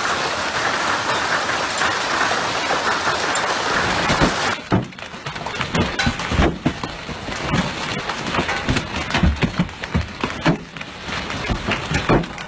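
Hail pelting down in a dense, steady hiss onto a backyard swimming pool and its paving. About four and a half seconds in, the sound switches to hailstones striking a moving car in heavy hail: many irregular sharp hits and low thumps over the noise of the downpour.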